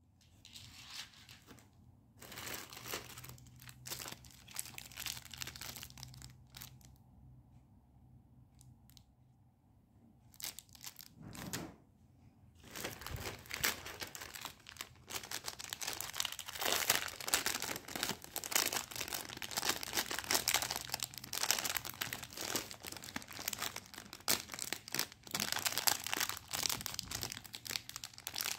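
Jewellery packaging crinkling and rustling as it is handled and opened: scattered crackles at first, becoming continuous from about halfway through.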